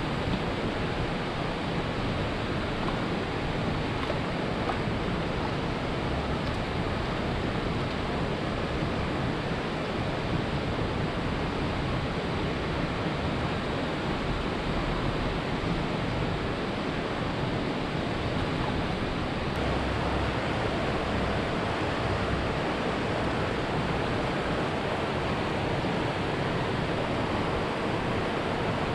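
Steady rushing outdoor noise that does not change, with no separate knocks, calls or voices.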